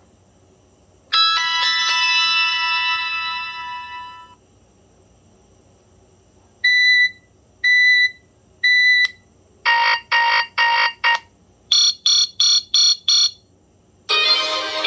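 BlackBerry Pearl 3G alert tones played one after another: a single bright chime about a second in, fading away over some three seconds; then three short beeps a second apart; then two runs of quick beeps, four and then five. Near the end a ringtone melody starts.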